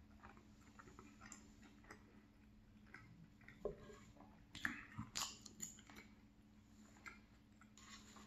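Faint chewing of a mouthful of creamy salmon pie, then a metal fork digging into the pie and scraping and clicking against an aluminium foil pie tin, with a handful of sharp ticks around the middle.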